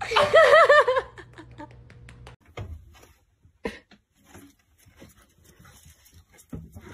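A small dog yapping, a quick run of about five high yips in the first second, followed by a few faint light taps and rustles.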